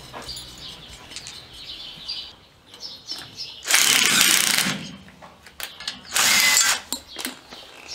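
Cordless impact driver running in two bursts against the screws of a pickup's rear brake drum, the first about a second long from near the middle, the second shorter near the end, with small metal clicks between.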